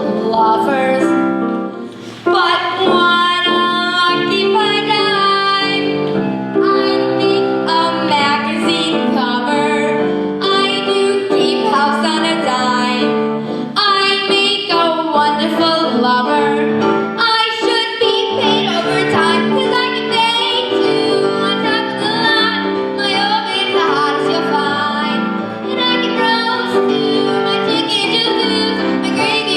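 A young female voice singing a show tune with vibrato, over piano accompaniment.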